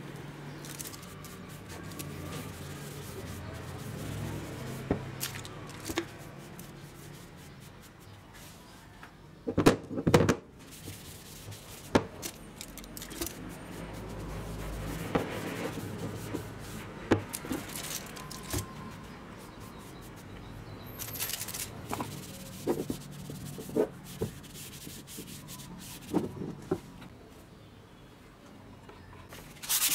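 A cloth rubs and wipes over an axe's wooden handle and steel head, broken by scattered knocks and clicks as the axe is handled, the loudest cluster about ten seconds in.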